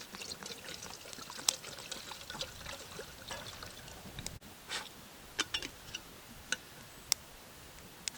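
Water poured into a kettle, trickling for about four seconds, then a few separate sharp clicks and taps.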